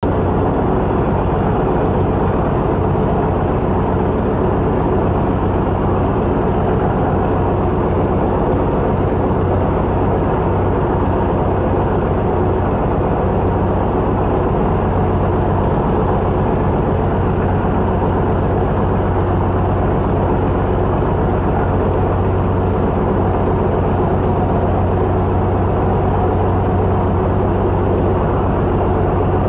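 The 180 hp piston engine and pusher propeller of a Velocity S-FG canard aircraft, heard inside the cabin, idling with a steady, unchanging low drone.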